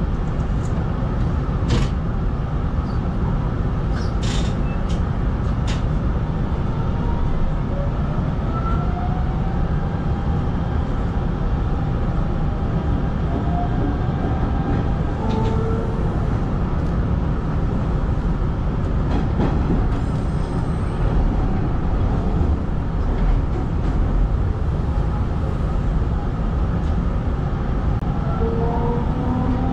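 Hanshin 5500-series electric commuter train running, heard from inside the front of the car: a steady rumble of wheels on the rails with a faint electric motor whine that slides in pitch, rising near the end. A few sharp clicks in the first several seconds.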